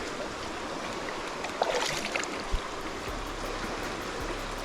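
Swollen river current rushing steadily after heavy rain. A brief louder burst comes about one and a half seconds in, and a single sharp thump about a second later.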